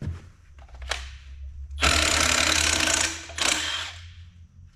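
Cordless impact wrench hammering on a stubborn engine fastener in a burst of about a second and a half, then a brief second burst; the fastener does not come loose.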